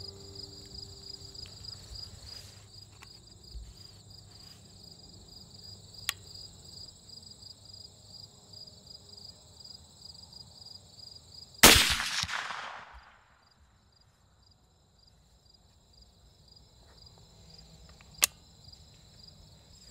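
A single .450 Bushmaster rifle shot about two-thirds of the way through: one sharp crack with a ringing tail of about a second. Insects chirp in a steady, pulsing trill around it.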